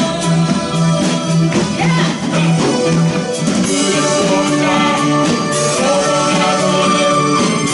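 Live band playing: a woman singing lead into a microphone over amplified electric guitars and bass guitar.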